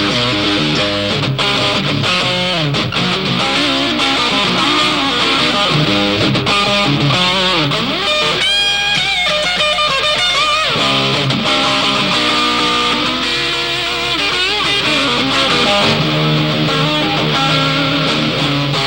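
Music led by strummed electric guitar with some distortion, over bass. About eight seconds in, a run of high guitar notes slides upward.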